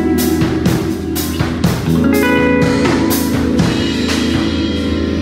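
Fender Jazzmaster electric guitar played through an amp, with a drum kit playing along.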